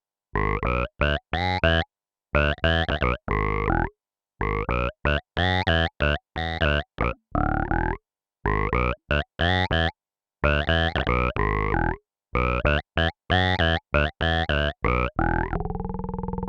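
Fender Jazz bass played through a Source Audio C4 Synth pedal on a synth patch: a riff of short, hard-cut notes, each with a filter sweeping upward, the phrase repeating about every four seconds. Near the end one note is held and rings on.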